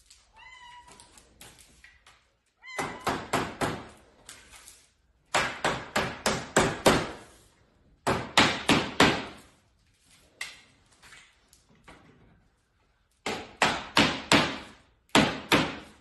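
A mallet striking PVC pipe and fittings, driving the joints of a pipe panel together, in quick runs of several blows with short pauses between runs.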